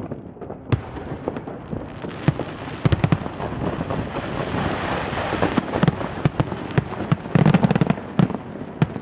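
Aerial firework shells bursting in quick succession: many sharp bangs over a continuous crackling hiss, the bangs coming thickest about seven seconds in.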